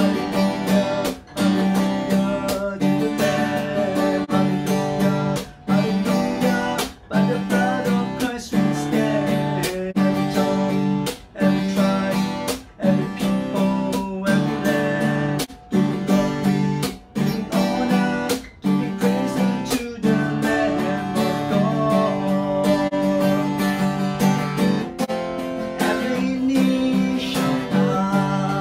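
A man singing a worship song while strumming a steel-string acoustic guitar, the strumming briefly breaking about every second and a half.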